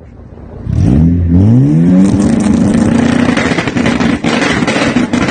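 Turbocharged Honda F20B four-cylinder engine revved up hard about a second in, then held at high revs for several seconds with a loud, raspy exhaust note.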